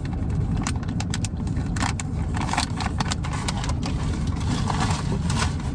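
Car engine idling, a steady low rumble heard from inside the cabin, with scattered light clicks and rattles on top.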